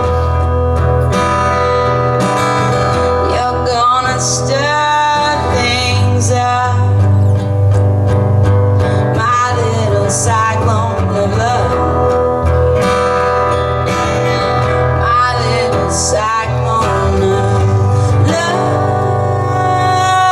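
Live acoustic band playing a slow country-folk song on guitars, with a lead line whose notes bend in pitch over a steady bass; an instrumental passage with no sung words.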